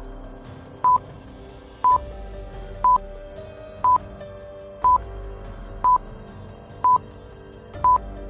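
Countdown stopwatch sound effect: a short single-pitched electronic beep once a second, about eight times, over quiet background music.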